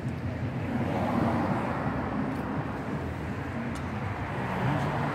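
Steady road traffic noise: a rumble and hiss of passing cars on a busy city street.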